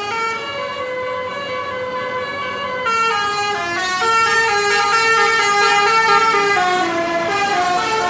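Basuri 'telolet' bus horn, a set of electric trumpet horns, playing a melody of held notes that step up and down, several tones sounding together. It gets louder about three seconds in.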